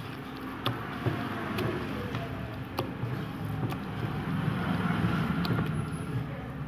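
Hand kneading soft rice-flour dough in a steel bowl: a continuous rubbing, squishing noise with scattered light clicks against the metal.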